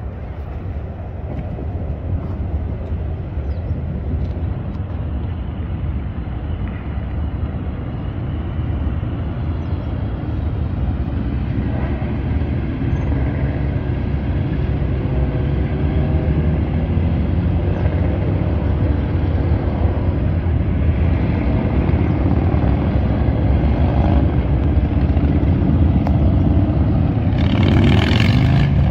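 A large group of motorcycles riding together, their engines a steady low rumble that grows louder as the column comes closer, with engine tones standing out from about halfway. Near the end a loud rush of noise comes over everything.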